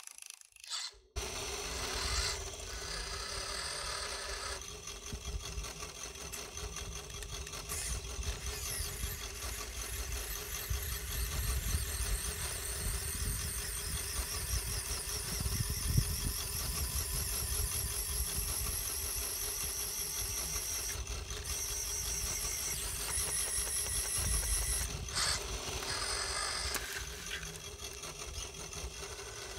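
The hydraulic pump of a radio-controlled dump truck runs steadily as the tipper bed slowly lifts on its hydraulic ram.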